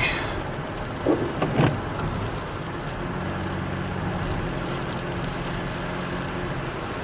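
Rain on a car, heard from inside the cabin of a Toyota Sienna minivan being driven, over steady road and engine noise. A low steady hum comes in a couple of seconds in and fades near the end.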